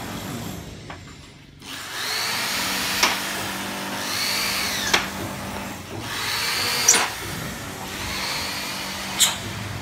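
Handheld power drill running in four bursts of about two seconds. In each, the motor whine climbs, then sags under load and ends with a sharp click, as when driving screws or drilling into aluminium door frame.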